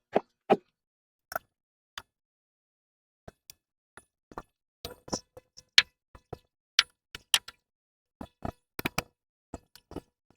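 Hand tools and metal parts clinking and knocking: scattered short, sharp metallic clicks at irregular intervals, with a few quick clusters near the end.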